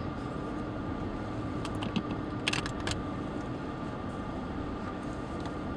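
Steady low hum inside a stationary car's cabin, with a few faint clicks about two to three seconds in.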